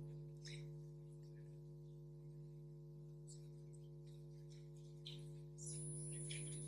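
Faint steady electrical hum through the microphone and sound system, with faint rustles of the room; a faint high-pitched whine comes in near the end.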